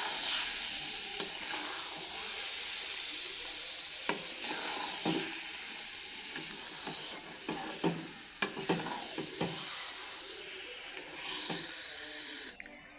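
Thick, sticky olive-and-jaggery pickle sizzling in a kadai while a metal spatula stirs it, with a steady hiss and a few sharp scrapes and knocks of the spatula against the pan in the middle. The pickle has cooked down into a sticky lump, the sign that it is nearly done.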